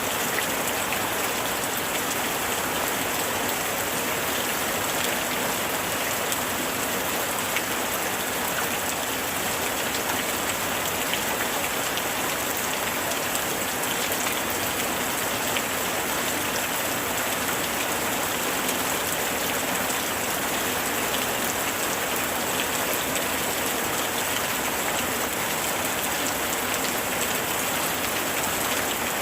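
Heavy rain falling steadily, a dense even hiss of drops with faint scattered patters on surfaces.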